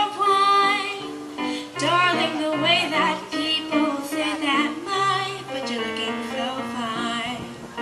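A song playing: a woman's voice singing with a wavering vibrato over an instrumental accompaniment.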